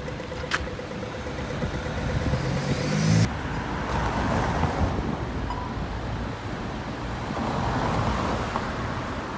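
Street traffic noise from cars driving and waiting at city intersections. A nearby vehicle engine runs close for about a second before an abrupt cut a little over three seconds in, after which the traffic wash carries on.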